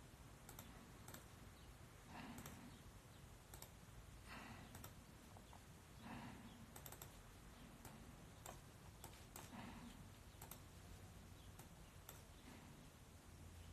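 Near silence, with faint, scattered clicks at irregular intervals.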